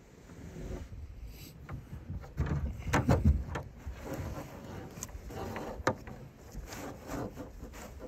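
Close handling and movement noise: rustling and rubbing with scattered knocks and clicks, and a louder dull bump about three seconds in.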